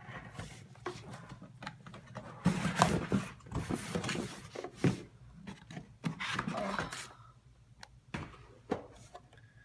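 Cardboard lid being slid off a tight-fitting drone box: cardboard rubbing and scraping on cardboard with a few light knocks, loudest from about two and a half to five seconds in.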